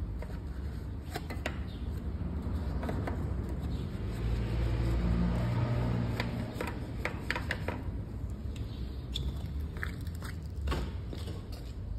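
Wheel brushes scrubbing a soapy alloy wheel, with scattered scrapes and clicks, over a steady low rumble that swells about four seconds in and eases off a couple of seconds later.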